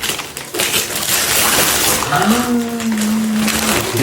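Gift packaging rustling and crinkling as a present is unwrapped, with a single long drawn-out 'ooh' from a person partway through.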